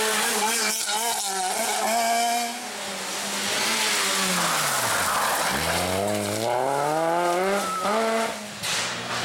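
Rally car engines at full song on a stage. The engine note falls steadily to a low pitch as a car slows, then climbs again as it accelerates away, with a short break near the end.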